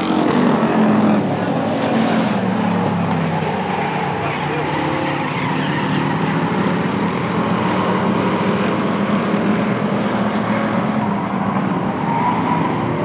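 Engines of a pack of short-track stock cars running hard together around an oval, a loud, steady mix of several engines.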